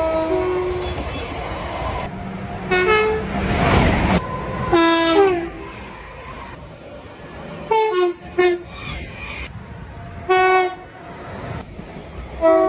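Series of short train horn blasts, about six, each several tones sounding together as a chord; the one about five seconds in falls in pitch at its end. Between the blasts is the noise of a running train.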